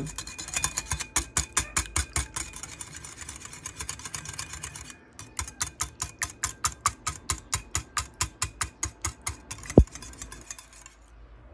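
Wire whisk beating yogurt in a bowl, the wires clicking against the bowl about five times a second. The beating pauses briefly about five seconds in, then resumes, with one louder knock near the end before it stops.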